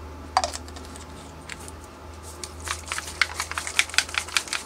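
A small bottle of homemade alcohol ink being handled: one click, then from about halfway a quick run of sharp clicks and rattles, several a second.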